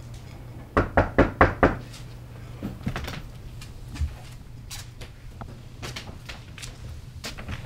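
Five quick, loud knocks on a door, about a second in.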